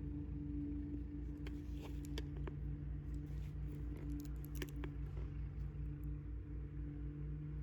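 Crackling and sharp clicks of packaging being handled, scattered through the middle of the stretch, over a steady low hum that pulses about five times a second.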